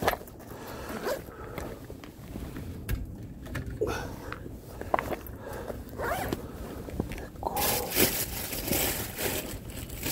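Gear being handled: scattered knocks and short scrapes, then a longer rasping scrape lasting about two seconds near the end.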